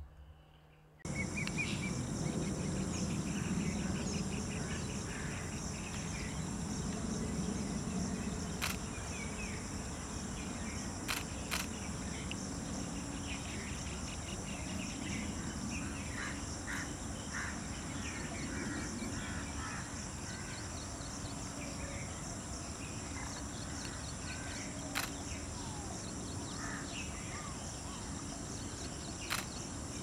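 Outdoor wildlife ambience that starts suddenly about a second in: insects trilling steadily, with scattered bird chirps over a low rumble. A few sharp clicks stand out, two close together around a third of the way in and two more near the end.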